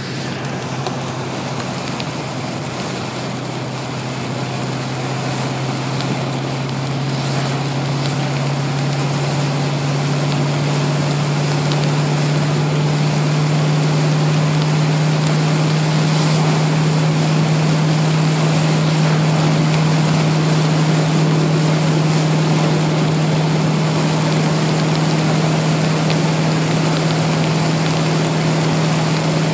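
Car engine droning under way, heard from inside the car, with a steady hiss of tyres on the wet road and rain. The engine note rises slowly and grows louder over the first dozen seconds, then holds steady.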